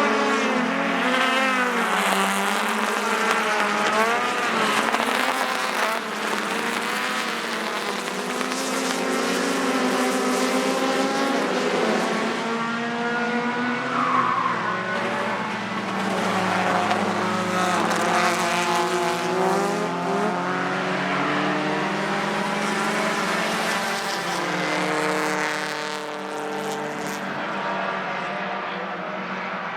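Several racing cars' engines running hard, their pitch rising and falling through the gears as they pass one after another, with a brief tyre squeal about halfway through.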